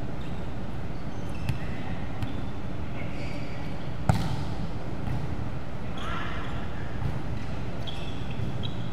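Volleyball being played in a large gym: one hard hit on the ball about four seconds in, echoing, with a few lighter knocks and short high squeaks over a steady hall hum.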